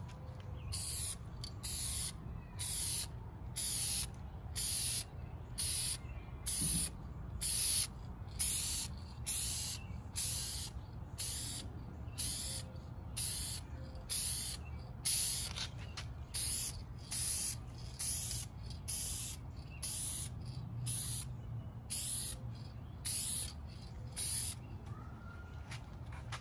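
Aerosol spray-paint can (Dupli-Color Vinyl & Fabric) spraying a plastic car interior trim panel in short hissing bursts, roughly one a second, with the nozzle pressed and released again and again for even light coats. The bursts stop near the end.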